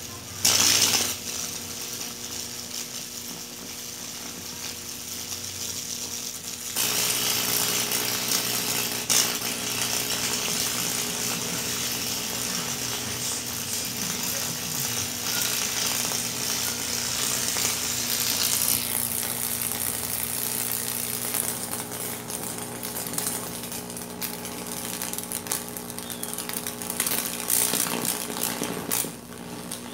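High-voltage arc from a microwave-oven transformer burning across salt-water-soaked wood: a steady crackling buzz over a mains hum. There is a sharp crack about half a second in, and the sound grows louder about seven seconds in.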